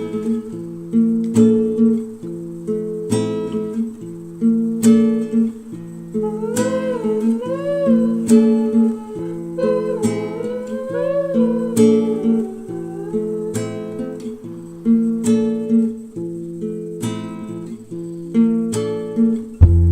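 Background music: acoustic guitar chords struck in a steady rhythm, with a wavering melody line entering twice in the middle.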